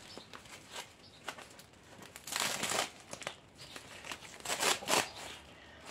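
Paper wrapping on a small plastic plant pot crinkling as it is handled, in two short rustles, one about two seconds in and one near the end, with light taps between.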